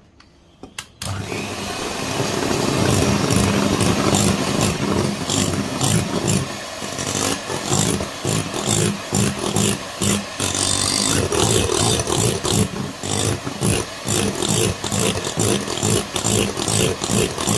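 Small electric kitchen mixer switched on about a second in and running steadily, with a rapidly fluttering churn, as it whips coffee cream.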